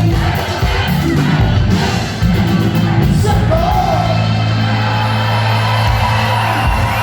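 Live cumbia band playing amplified, with a steady bass line and drums, a voice singing over it, and shouts and whoops from the stage or crowd.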